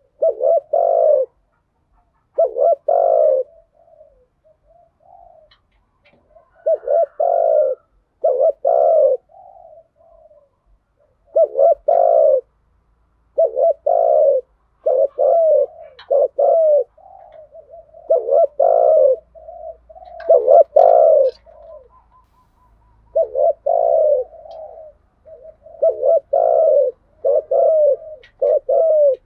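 Spotted doves cooing: a run of short, low coo phrases, one after another with brief pauses, and softer notes between them. These are the coaxing coos and calling songs keepers use to set off a caged male.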